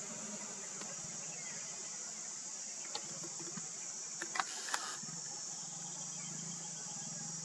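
Insects shrilling steadily at a high pitch, with a low steady hum underneath and a few faint clicks a little past the middle.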